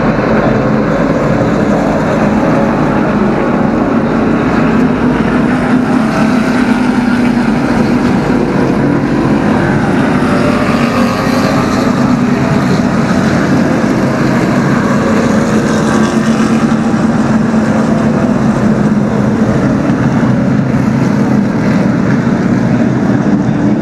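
NASCAR stock cars' V8 engines running down the frontstretch in a line, a loud steady blend of many engines at once.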